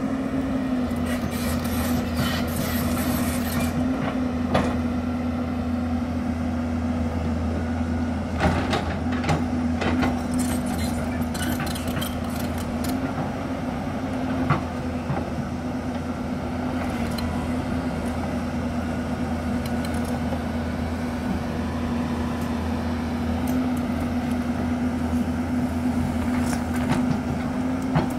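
Diesel engine of a Hyundai crawler excavator running steadily under load while digging, with a few sharp knocks and scraping bursts from the bucket working soil and rock.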